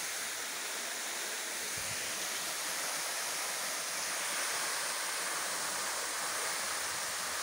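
Waterfall: a thin cascade falling down a rock cliff onto a shallow pool, making a steady, even rush of water.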